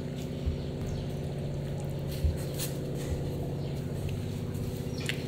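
A steady low hum made of several evenly spaced tones, unchanging throughout, with a few faint clicks over it.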